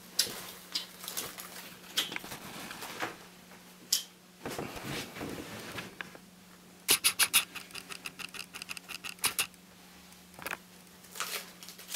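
Handling of product packaging: scattered clicks and rustles, then a quick run of even ticks for a couple of seconds in the middle.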